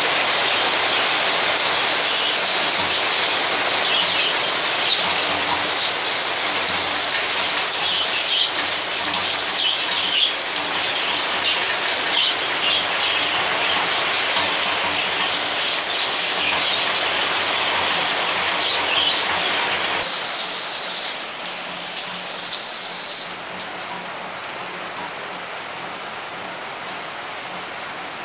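Heavy rain pouring steadily, with many scattered sharp ticks over it. It turns softer and smoother about twenty seconds in.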